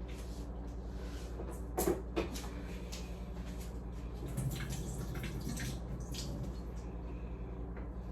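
Leftover drink being poured out of a bottle, the liquid splashing and dripping into a sink, with two sharp clicks about two seconds in.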